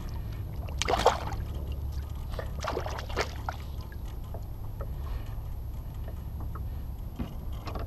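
A fish let go into shallow water beside a kayak: a splash about a second in, then a few smaller splashes and drips, over a steady low rumble.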